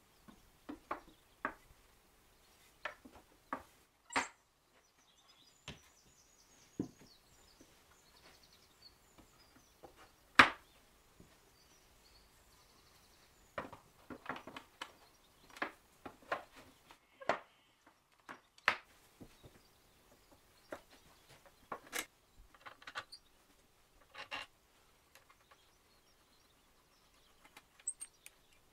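Solid ash rails and legs of a knock-down desk frame knocking and clicking against each other and the bench as they are fitted together: scattered wooden knocks, the loudest about ten seconds in.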